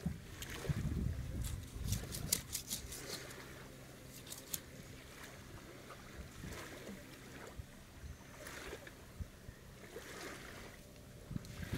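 Large kitchen knife cutting and scraping through an animal carcass on a wooden plank: a quick run of short scrapes over the first few seconds, then scattered clicks and knocks. Under it is a low rumble.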